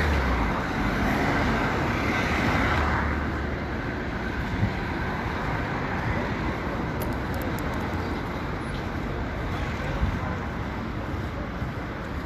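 Steady street traffic and road noise, louder and rushing for the first three seconds, then settling to a steady hum.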